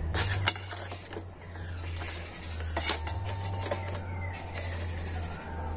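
Steel bowls set down on a steel plate, with a few sharp metal clinks and knocks in the first three seconds, over a steady low hum.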